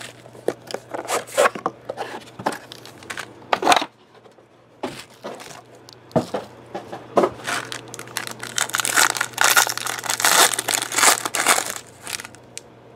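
Handling of a cardboard trading-card box with scattered taps and clicks, then a foil card-pack wrapper crinkling and tearing open. The crinkling is densest from about eight to twelve seconds in.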